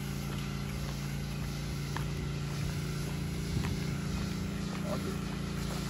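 A steady low mechanical hum, with a few faint footsteps on a concrete sidewalk.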